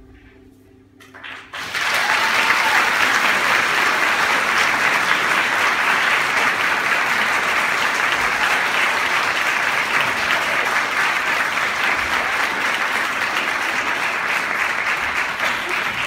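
Audience applause starting about a second and a half in, just after the last faint notes of the dance music, then holding loud and steady.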